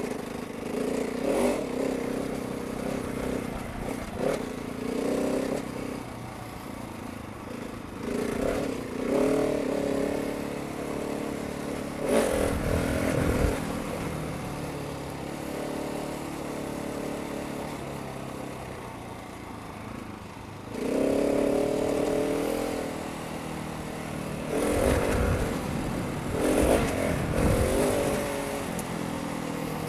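Husqvarna 701's single-cylinder engine with an aftermarket Barrett muffler, riding along a dirt track, the throttle opening and closing in repeated surges. Rumbles of wind on the microphone come about twelve seconds in and again near the end.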